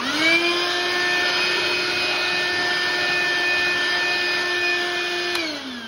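Cordless handheld vacuum switched on, its motor whining up to speed at once and running steadily while vacuuming out the gap in a vinyl plank floor. Near the end it is switched off and the whine falls as the motor winds down.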